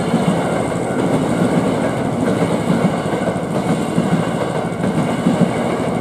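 Hankyu electric commuter train running through a level crossing: a steady, loud rumble of wheels on the track as the cars pass.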